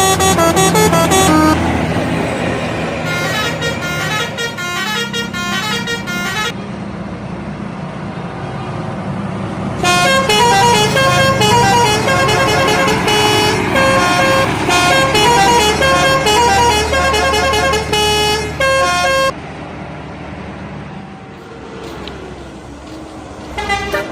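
Indonesian bus 'telolet' horns playing short tunes of stepping notes, in three spells: briefly at the start, again for a few seconds, then for about nine seconds in the middle. Between and after the tunes, only the bus engine and road noise are heard.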